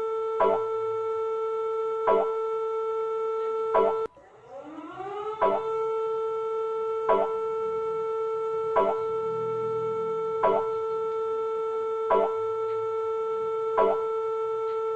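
Emergency alert alarm tone played through a laptop speaker: a steady pitched siren tone with a short pulse repeating a little under every two seconds. About four seconds in it cuts off and glides back up to pitch.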